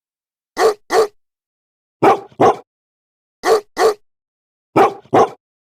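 Dog barking in double barks, "woof-woof", four times at an even pace, about one pair every second and a half.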